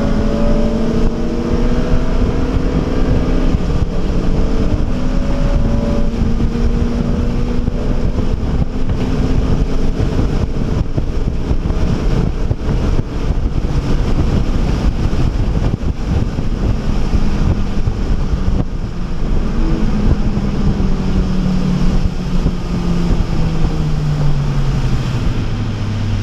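In-cabin sound of a 2011 Honda Civic Si at speed: its 2.0-litre four-cylinder engine runs at high revs under loud, rushing road and wind noise. Over the last several seconds the engine note falls steadily as the revs drop.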